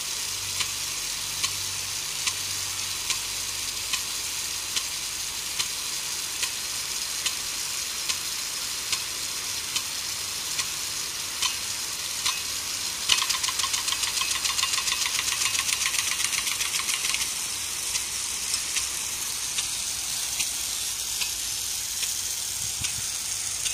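Impact rain gun sprinkler spraying water with a steady hiss, its swinging arm striking with a sharp click about once every 0.8 seconds. About halfway in, a rapid rattle of clicks runs for about four seconds, as on the gun's quick return stroke across its arc.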